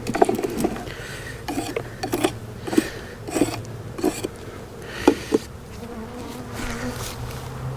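Honeybees buzzing steadily around an open hive. Repeated short scrapes and knocks come through the buzz, about one or two a second, as the hive's bottom is scraped clean.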